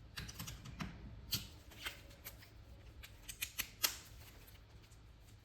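Light clicks and small metallic rattles of hand tools being handled, a torque wrench and spanner being set up, with several sharper clicks in the second half.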